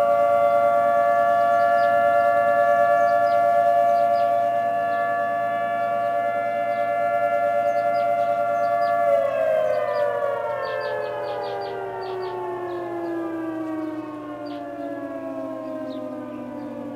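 Federal Signal T22-series multi-tone electromechanical tornado siren sounding its steady chord during a siren test. About nine seconds in it begins winding down, the whole chord gliding lower and fading as the siren shuts off.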